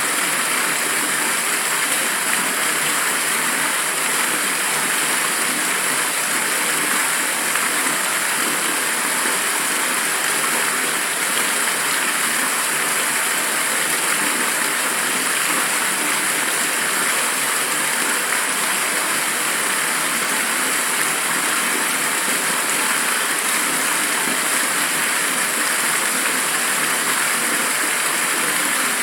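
Steady hiss of rushing air, even and unbroken, mostly high-pitched with almost no low rumble.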